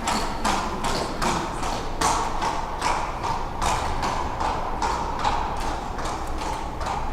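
Horse hooves clip-clopping on a hard floor at a walk, an even run of sharp knocks about two to three a second.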